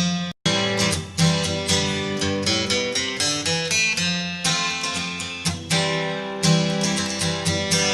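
Background music of plucked acoustic guitar playing a steady run of notes. It cuts out for a moment about half a second in, then resumes.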